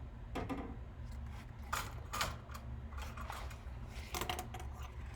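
A few sharp clicks and light metallic taps from small hand tools working on a circuit board, the sharpest about two seconds and four seconds in, over a steady low hum.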